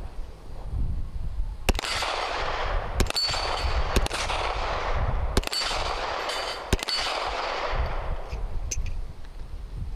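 A 1911 pistol fired in a slow string, about six shots roughly a second apart, each echoing briefly. After several shots a thin high ping rings from the steel targets, which were being nicked at the edge.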